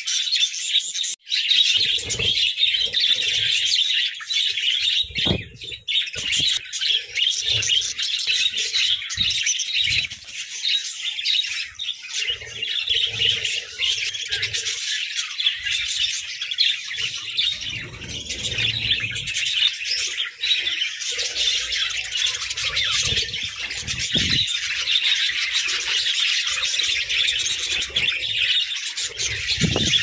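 A flock of budgerigars chirping and chattering without pause, with occasional soft low knocks underneath.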